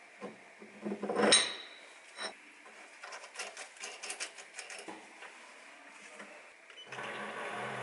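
Metal clinking and clanking as octagonal steel plates are fitted against a lathe chuck and a washer and nut are put on and tightened with a wrench, with one loud ringing clank about a second in and lighter clicks after. Near the end the lathe motor starts and runs with a steady hum.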